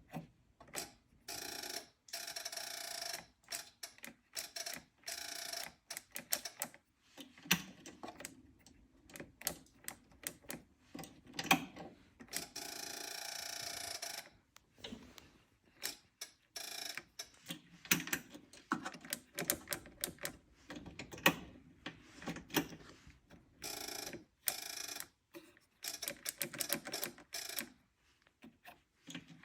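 Kubota L-series compact tractor being tried on the starter: a string of sharp clicks and short bursts of whirring, each lasting a second or two, with the engine never catching and running on.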